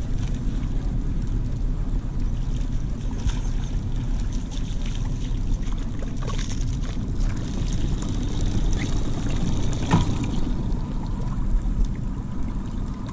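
Steady low rumble on an open boat, with a hooked fish splashing and thrashing at the water's surface about six seconds in, and a sharp knock near ten seconds.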